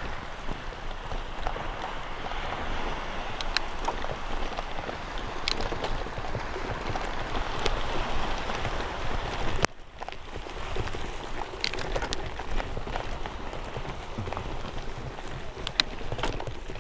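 Bike tyres rolling over sand and beach pebbles, a continuous gritty crunch scattered with sharp clicks of stones and frame rattles. The sound drops out for an instant just under ten seconds in.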